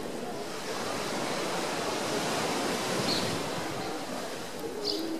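Ocean surf washing onto a sandy beach: a hiss of breaking water that builds over the first couple of seconds and then slowly eases off.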